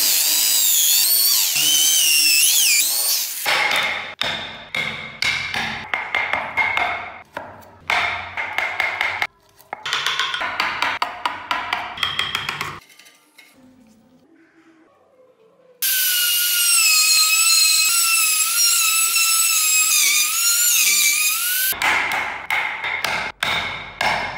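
A cordless drill boring into a solid wood block, its motor whine wavering with the load. Between two drilling spells a hand chisel cuts the drilled-out wood in rapid irregular strokes, and near the end the chisel is struck in quick taps.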